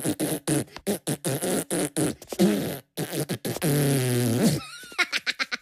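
Cartoon Minion voices giggling in rapid bursts, then one long, steady fart noise about three and a half seconds in, lasting about a second. The giggling starts up again near the end.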